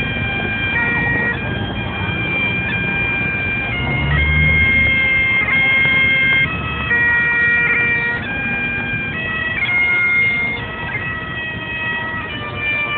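Bagpipes playing a tune: held chanter notes step to a new pitch every half second to a second over a steady drone, with low street noise underneath.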